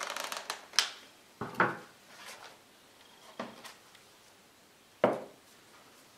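Handling noises on a tabletop: rustling at first, then a handful of separate knocks and clatters as a bamboo plate and a glass jar are picked up and set down on a plastic-covered wooden board. The sharpest knock comes about five seconds in.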